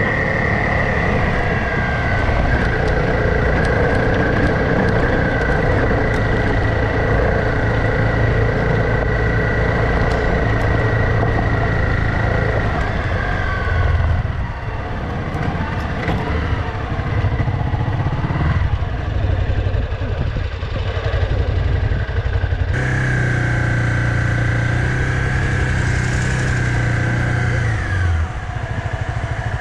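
Honda CRF trail motorcycle's engine running steadily at riding speed. The engine note eases off about halfway through and changes abruptly later on.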